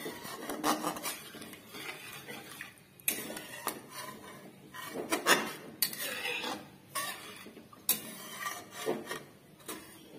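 Metal spatula stirring and scraping curry gravy in a metal kadai, mixing in freshly added coconut milk: irregular wet scrapes with occasional sharp knocks of the spatula against the pan.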